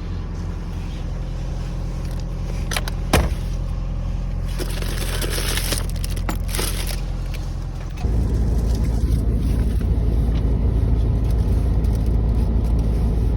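Mitsubishi L200's 2.5-litre diesel engine idling steadily, with a few sharp clicks and some rustling. About eight seconds in, the low engine rumble suddenly gets louder and stays that way.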